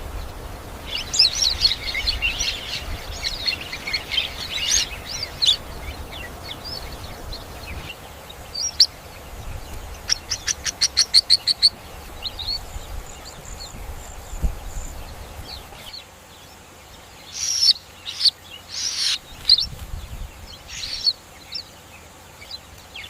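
Weaver bird chirping in high bursts of notes, with a quick run of about a dozen rapid even notes around ten seconds in and louder separate chirps later, over a low background rumble that drops away partway through.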